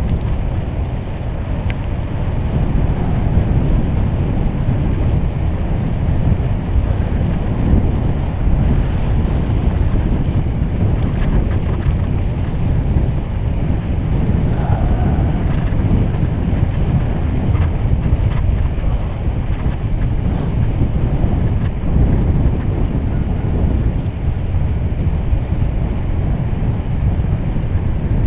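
Steady wind rumble on an action camera's microphone from riding a road bicycle, mixed with the hiss of tyres on wet asphalt.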